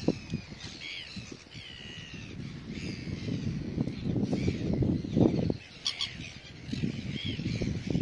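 Red-billed gulls calling, many short calls following and overlapping one another.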